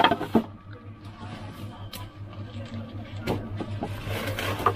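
Plastic wrapping crinkling and wooden cricket bats knocking against each other as one is pulled from a tightly packed rack: several separate clicks and knocks, with a longer rustle near the end, over a steady low hum.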